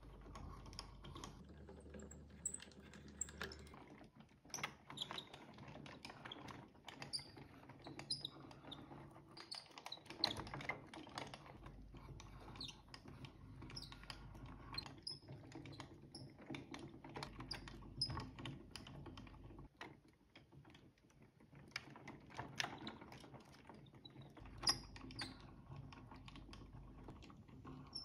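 Hand-cranked wooden automaton running, its wooden cams, gears and followers clicking and tapping irregularly as the figures move.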